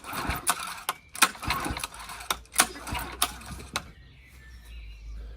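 Honda 8 hp four-stroke outboard being cranked by its recoil pull-starter for a compression test, with the spark plug out and a gauge screwed into the top cylinder, so the engine turns over without firing. A run of rattling mechanical clicks stops about four seconds in.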